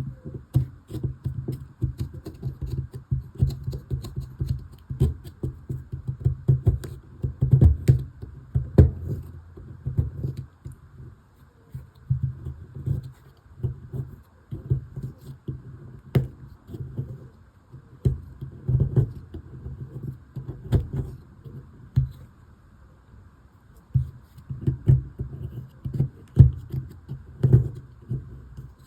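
Hands working a toy dig kit: irregular clusters of taps, knocks and scrapes, with a few short lulls.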